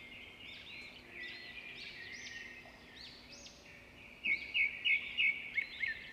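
Several birds calling at once in a chorus of chirps and whistled, arching notes. About four seconds in, one bird starts a run of loud repeated notes, about three a second.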